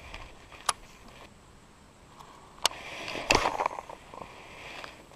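Fishing rod and reel being cast and handled: a sharp click about two-thirds of a second in, another a little over two and a half seconds in, then a short, louder burst of clattering handling noise just after three seconds.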